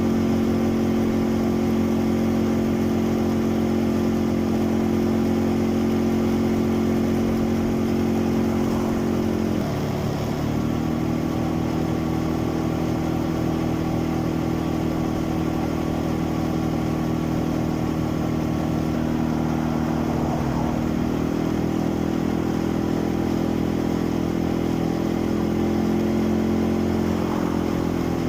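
Quad bike engine running steadily under way. Its note shifts about ten seconds in and again around twenty seconds in.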